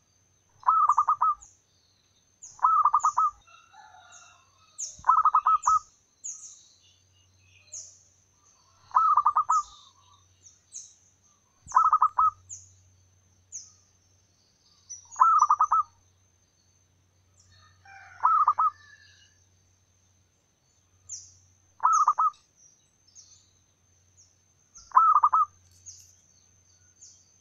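Zebra dove (perkutut) singing its rapid, staccato cooing phrase, a short trilled burst repeated nine times, two to four seconds apart. Thin, high-pitched chirps run steadily behind it.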